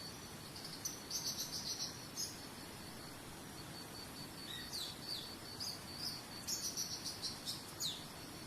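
A small bird sings in two bursts of rapid chirps, some of them quick falling notes, over a cricket's steady pulsing trill. Underneath is a steady hiss of running water.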